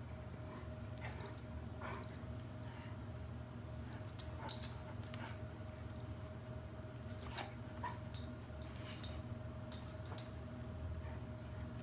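Great Pyrenees dog and ragdoll cat at play: scattered short clicks and jingles, a few at a time, over a steady low hum.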